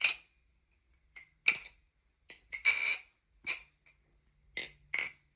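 A balisong (butterfly knife) being flipped: its handles clack and rattle against each other and the blade in about ten sharp, irregular clicks, with a short clattering rattle about halfway through.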